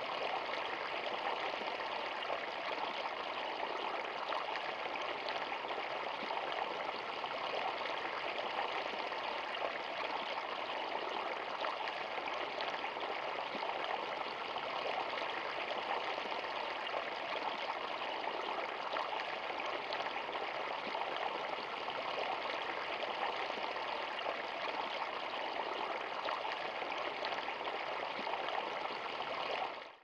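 Shallow woodland stream spilling over a submerged branch in a small cascade: a steady rush of running water.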